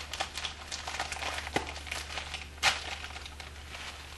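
Ritz cracker snack packs crinkling and crackling as the crackers are handled for a crunchy topping, in irregular crisp crackles with one sharp snap a little over two and a half seconds in.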